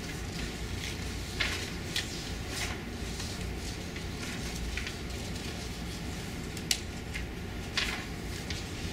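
Steady low hum of a small lecture room, with half a dozen short, sharp rustles and taps scattered through it.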